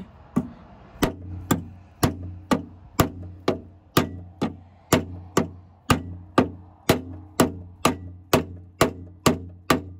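Hammer striking the van's turn-signal housing to drive it into place, steady sharp blows about two a second, with a faint steady low hum underneath.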